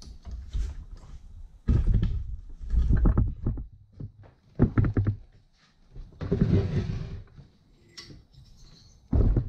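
Heavy thuds and knocks from a Kohler K301 cast-iron engine being turned over and set down on a wooden workbench. There are several separate knocks, and a longer scraping sound comes about six seconds in.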